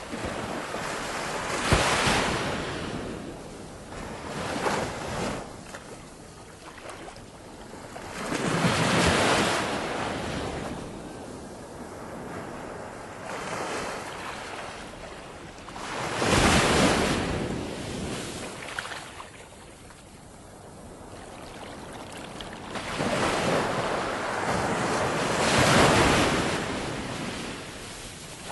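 Ocean waves breaking, each surge swelling up and washing away, with four big surges several seconds apart and wind between them.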